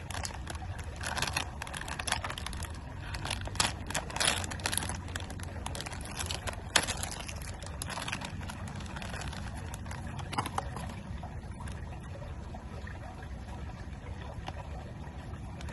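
A blind box being opened by hand and the figure's packaging handled: a run of clicks, rustles and crinkles, busiest in the first ten seconds, with one sharp click near the middle, over a steady low hum.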